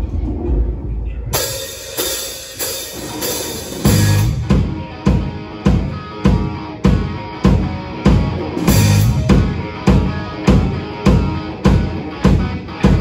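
Live band playing with electric guitars and a drum kit; cymbals come in about a second in, and a steady kick-drum beat starts about four seconds in.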